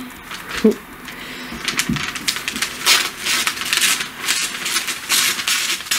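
Scissors cutting through wrapping paper, with the paper crackling and rustling in quick runs of crisp snips from about a second and a half in.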